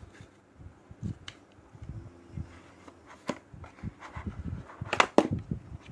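Handling noise from unpacking a smartphone box: paper and a cardboard tray shifted by hand, with scattered small taps and knocks. Two sharp clicks come close together about five seconds in, as the charger is worked out of its tray.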